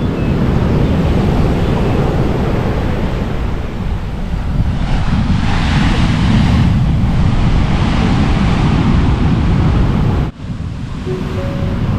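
Heavy surf from a rough sea breaking on the shore, with wind buffeting the microphone. One wave crashes and hisses louder about five to seven seconds in. The sound drops out abruptly for a moment about ten seconds in.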